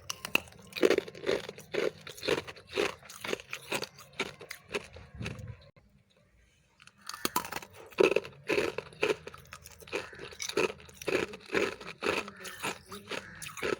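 Close-up crunching and chewing of freezer frost and refrozen ice chunks, about two crunches a second. There is a brief pause in the middle before the chewing resumes.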